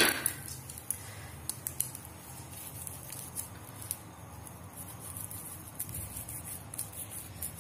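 Faint crackle of oil heating on an iron tawa, with scattered light clicks and taps.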